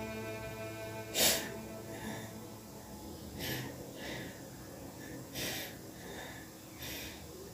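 Sad violin music holding a long note, cutting off about a second in; then a person sniffs sharply through the nose four times, every couple of seconds, the first sniff the loudest.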